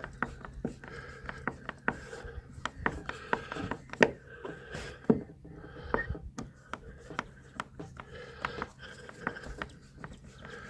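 Hand tools working at wooden deck covering boards: irregular taps and knocks with scraping between them, as screws are dug out of the wood.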